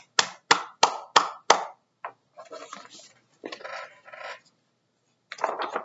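A person clapping their hands five times in quick succession, about three claps a second, then the papery rustle of a picture book's page being turned.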